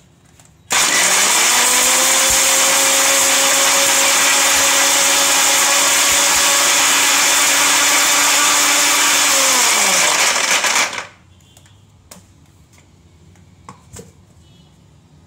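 Philips HL7699 750-watt mixer grinder's motor regrinding the last few pieces of dry coconut in its steel jar. It starts suddenly, runs about ten seconds at a steady whine with a dense hiss, then winds down with falling pitch. A few light clicks follow near the end.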